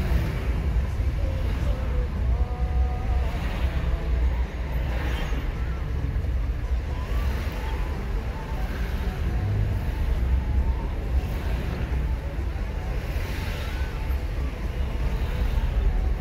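A car driving: steady low rumble of engine and tyres on the road.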